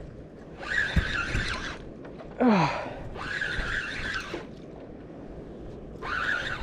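A Penn spinning reel being cranked hard in spurts of about a second, three times, a whirring grind while a hooked fish is pumped up on the rod. About two and a half seconds in, a brief, loud sound drops steeply in pitch.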